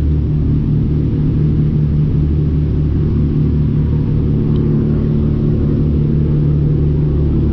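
A riverboat's engine running steadily, a constant low hum with a steady pitch.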